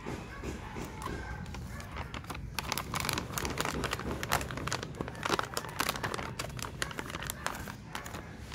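Packaging crinkling and rustling as it is handled, with a dense run of crackles from about two and a half seconds in until near the end.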